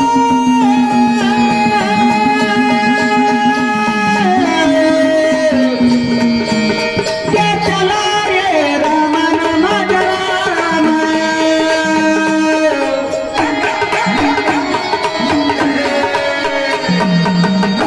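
Instrumental interlude of Marathi devotional folk music: a sustained melody instrument plays held notes that step up and down, over a steady hand-drum rhythm.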